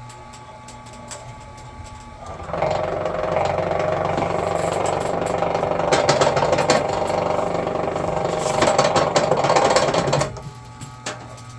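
Electric wire stripping machine's motor running steadily. About two seconds in it turns much louder and rougher, with many clicks, as thick cable is fed through its rollers and blade to slit the insulation. Near the end it drops back to the steady motor hum.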